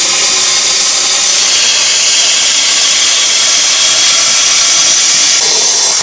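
HANDTEK Cut-40 plasma cutter cutting through a car muffler's thin sheet-steel shell: a loud, steady hiss from the torch's air-plasma arc that stops right at the end.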